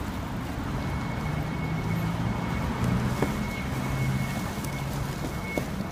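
Street traffic: a vehicle engine running close by with a steady low hum. A faint, thin, steady high tone comes in about a second in and stops near the end.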